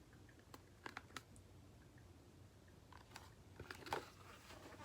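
Near silence with a few faint, short clicks and taps, a cluster of them about a second in and two more near the end.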